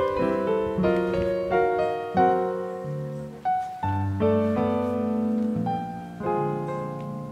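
Background piano music: a melody over chords, one note after another.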